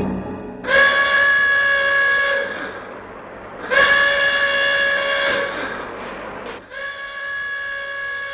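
Emergency alarm horn sounding three long blasts of one steady, unchanging pitch, each about one and a half seconds long with short gaps between; the third blast is a little quieter.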